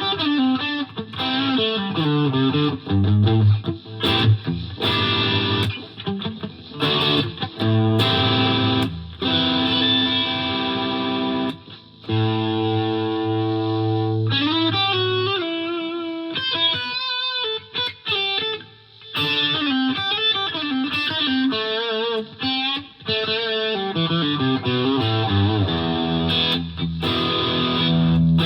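A 2006 Gibson Les Paul Classic with a Seymour Duncan SH-1 humbucker, played through a Fender Mustang LT50 amp on an overdriven, distorted tone. It plays riffs and single-note lines with short breaks, and lets a chord ring for about two seconds near the middle.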